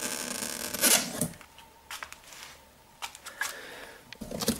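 Folding handlebar mechanism of a Wo Long C1 Plus electric scooter being handled: a scraping rustle for about the first second, then scattered light clicks and knocks.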